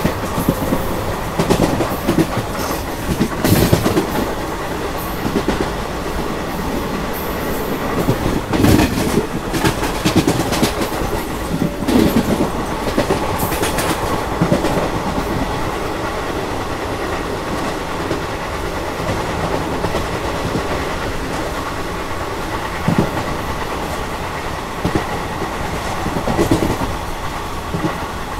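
Express passenger train running at speed, heard from aboard a coach: a steady rumble of wheels on rail with an irregular clickety-clack of sharp knocks over rail joints, more frequent in the first half.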